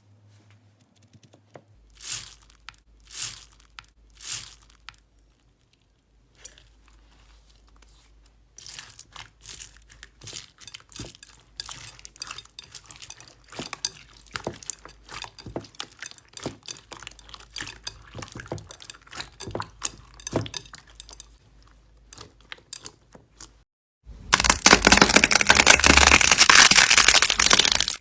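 Slime being squeezed and pressed by hand: three separate squishes, then a long run of small crackles and pops, and near the end a sudden loud, dense crackling.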